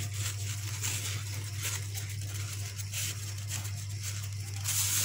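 Crepe paper rustling and crinkling in short irregular strokes as it is wrapped and pinched around the base of a paper rose, loudest near the end, over a steady low hum.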